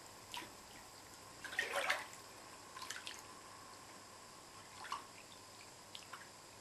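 A hand moving through bath water, giving soft splashes and drips now and then, the loudest about one and a half to two seconds in.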